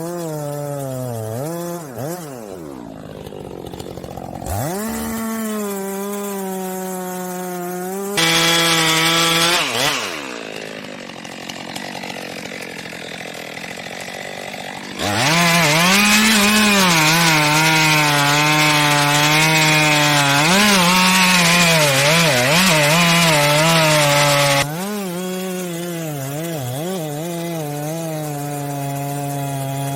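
Two-stroke chainsaw running and cutting into timber. Its engine note dips and recovers in pitch as the chain bogs in the cut. There are several abrupt jumps in loudness and pitch, and the loudest stretch falls in the second half.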